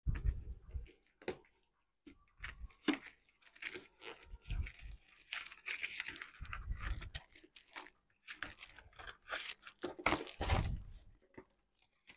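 Scissors cutting through a corrugated cardboard box, with cardboard crunching, scraping and tearing in short irregular strokes and a few heavier handling thumps.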